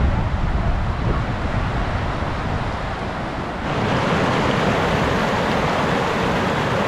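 Creek rapids rushing over rock ledges, a steady noise of white water. A little under four seconds in it turns louder and brighter as the rapids are close at hand.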